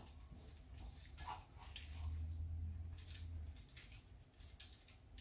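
Faint scraping and light clicks of a wooden spoon scooping cooked callaloo out of a skillet, with a low rumble that swells from about two seconds in and fades after three.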